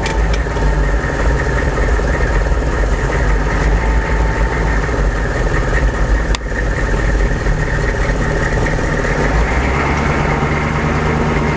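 1998 AM General Hummer's 6.5-litre turbo-diesel V8 running at low RPM, carrying a faint whine whose pitch follows engine speed; the owner suspects something engine-related and says it has been getting louder. A single sharp click about six seconds in.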